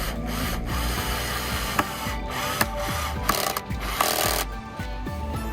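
Background music over work on wood, with short noisy bursts of a tool about three and four seconds in.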